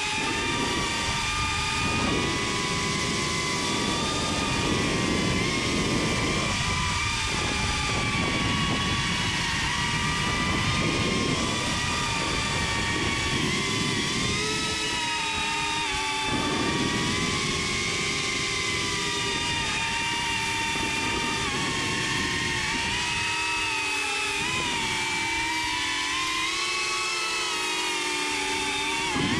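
Small FPV quadcopter's electric motors and propellers whining, several tones rising and falling together as the throttle changes, with a rushing of air under them that swells and fades.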